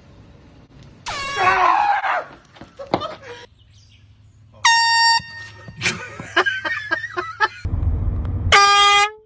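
Air horn blasting twice: a steady high-pitched blast lasting just over a second, then a shorter, lower-pitched blast near the end. A person's loud shout comes about a second in.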